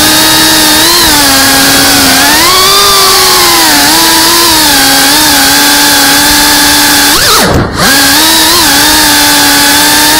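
FPV quadcopter's brushless motors and propellers whining loudly, heard close through the onboard camera. The pitch wavers up and down with throttle. About seven seconds in it falls steeply, dips briefly in loudness, then climbs sharply back up.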